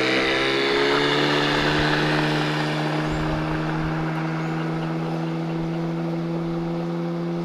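Boat outboard motor running, its pitch finishing a climb as it throttles up about half a second in, then holding steady at speed.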